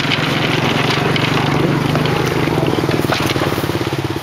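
Small single-cylinder gasoline engine of a Cambodian bamboo train (norry) running steadily at a low, even speed.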